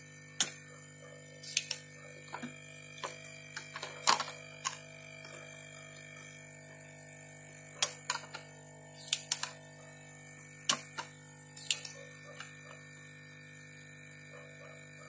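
Irregular sharp clicks and taps of small tools and parts being handled during an electronics repair, about ten in all, over a steady electrical hum.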